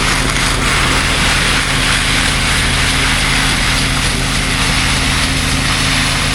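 Concrete pump truck's engine running steadily while pumping, a constant engine drone with a broad rushing noise over it.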